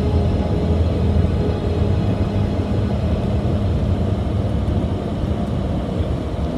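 Steady road and engine noise of a car driving at highway speed, heard from inside the moving car: a low, even hum.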